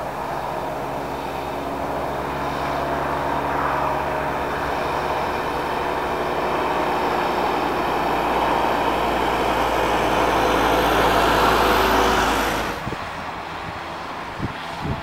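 Canadair water-bomber aircraft flying past, a steady propeller-engine drone that grows louder, then drops off suddenly near the end, leaving quieter wind-like noise.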